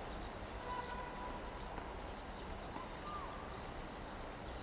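Faint bird chirps and short whistles over a steady low background hum of outdoor ambience.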